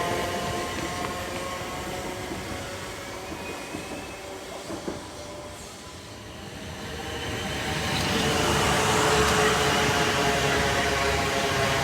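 Class 450 Desiro electric multiple unit running, its traction motors whining in several steady tones over wheel and rail rumble. The sound fades to its quietest about six seconds in, then a train grows loud again.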